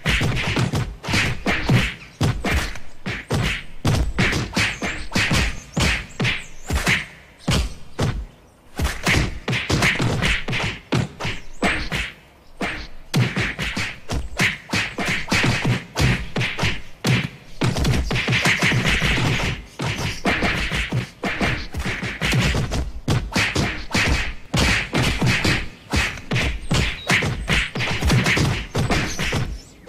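Cartoon fight sound effects: a rapid, continuous string of punch and kick impacts, several a second, with brief lulls about eight and twelve seconds in.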